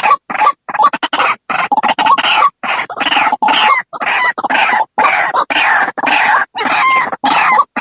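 White-breasted waterhen calling: a fast run of loud, rough call notes, about three a second, with short breaks between them.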